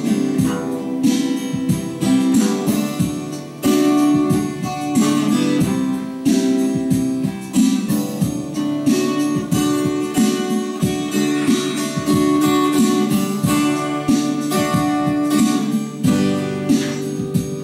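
Twelve-string acoustic guitar strummed in an even rhythm, chord after chord.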